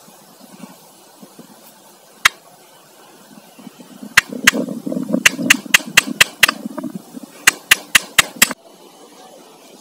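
Wooden knife handle knocked butt-down against a concrete floor to drive it onto the glued tang: one sharp knock, then two quick runs of sharp knocks, about five a second, stopping abruptly.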